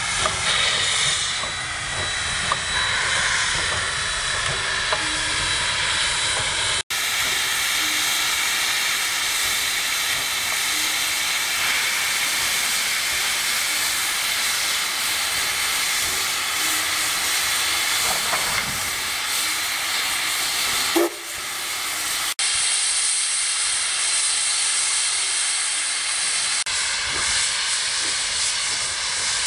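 Narrow-gauge steam locomotive hissing steady, loud steam from its open cylinder cocks as it works slowly.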